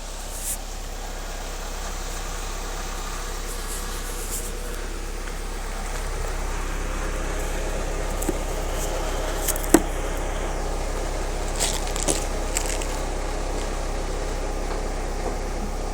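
Alfa Romeo 145 running with a steady low drone, over which come scattered sharp clicks, a few at first and then several between about eight and thirteen seconds in, the loudest near ten seconds: the car's strange noises.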